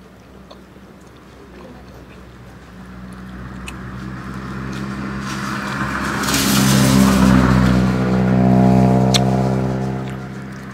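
Motor vehicle passing on the road, its engine hum swelling over several seconds, peaking, then fading away.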